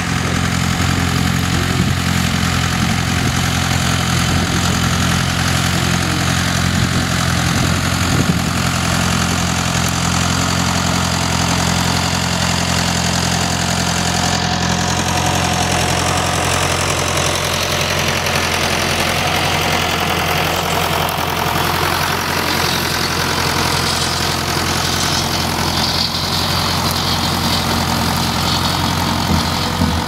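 Vintage Fordson tractor engine running steadily at a constant, low engine speed while the tractor pulls a plough through stubble.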